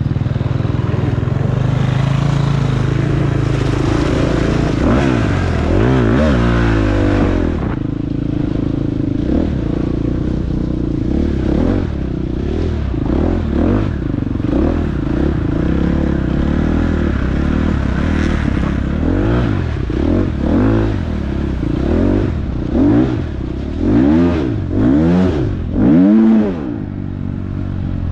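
Dirt bike engine running hard in an off-road race, the revs swinging up and down in quick swells as the throttle is blipped repeatedly through the second half, with clattering from the bike.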